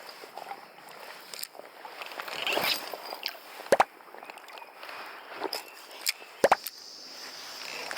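Scattered splashy, rustling handling noises with a few sharp knocks, about four seconds in and a pair about six seconds in, over a steady high insect buzz.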